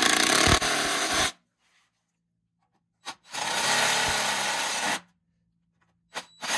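Cordless DeWalt drill-driver driving screws into a trim-tab hinge on a boat's transom, in two short runs: the first stops about a second in, the second runs from about three to five seconds in. The screws are being snugged up, not driven hard.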